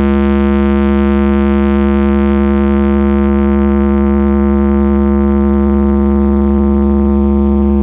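Carnival parade sound system blaring one long, steady synthesizer drone note over a constant heavy sub-bass.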